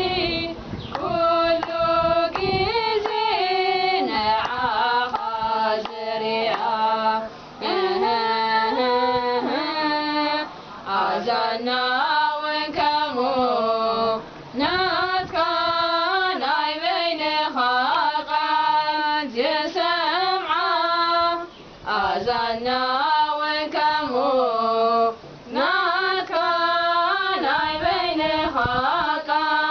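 Women's voices singing an Eritrean Orthodox Tewahedo hymn (mezmur) without instruments, in phrases with brief pauses between them.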